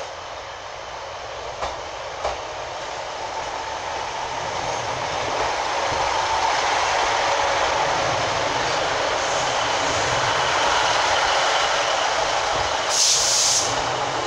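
Class 156 Super Sprinter diesel multiple unit arriving at the platform and running past close by. Its diesel engine and wheel noise grow louder over the first six seconds and then hold steady, with a couple of clicks early. A short hiss comes near the end.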